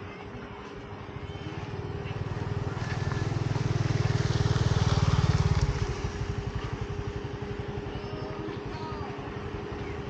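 A motor vehicle engine running, growing louder to a peak about five seconds in and then dropping off suddenly.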